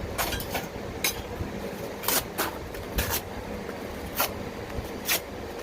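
Cardboard and paper tinder being torn into small pieces by hand: about eight short rips at irregular intervals, over a faint steady hum.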